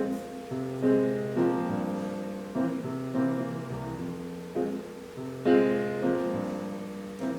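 Piano playing a slow introduction of chords, each struck and left to ring, played back through a hi-fi amplifier and speakers.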